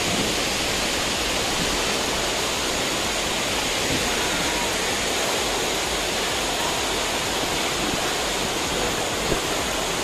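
Steady rush of a tall waterfall pouring into a rock pool, with the stream below it running fast over rocks.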